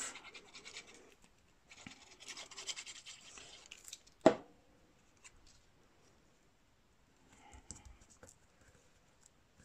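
Paper crafting handling sounds: scratchy rustling as liquid glue is spread on a die-cut paper label, then a single sharp knock a little past four seconds in. Near the end there is light rubbing as the label is pressed down onto the card.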